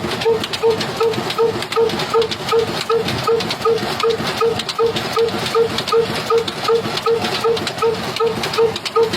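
Old black diesel engine running at a slow, steady beat, about three pulses a second, while driving a flour mill, with a dense mechanical clatter throughout.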